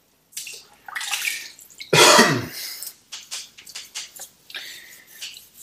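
A wet microfiber wheel woolly brush sloshed in a bucket of rinse solution and scrubbed through the spokes of an alloy wheel, with one loud cough about two seconds in.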